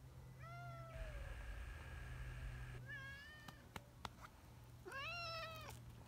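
Brown tabby cat meowing three times, each call drawn out and falling at its end, the last one the longest. A steady hiss runs between the first two meows, and two sharp clicks come after the second.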